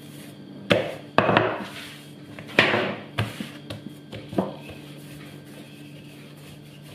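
Soft yeast dough being turned over, dropped onto a floured countertop and pressed flat by hand, giving a few soft thumps and rubbing sounds in the first half, then fainter handling as a wooden rolling pin is put to it.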